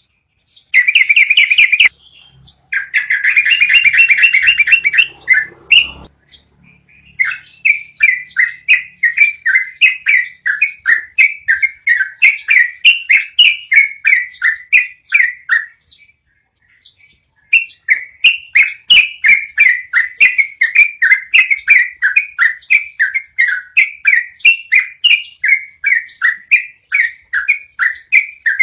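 Yellow-vented bulbul (trucukan) singing a long rolling song. Two short, dense, buzzing trills in the first five seconds give way to long runs of quick rising-and-falling notes, several a second, with a brief pause about halfway through.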